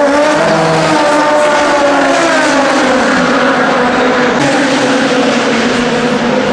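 Super Formula SF19 race car's turbocharged four-cylinder engine running loud and steady, its pitch rising slightly and then slowly falling.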